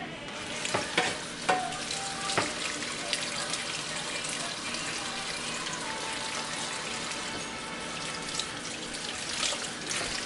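Tap water running into a stainless steel kitchen sink as crabs are scrubbed by hand under it, with a few sharp clicks and knocks in the first couple of seconds.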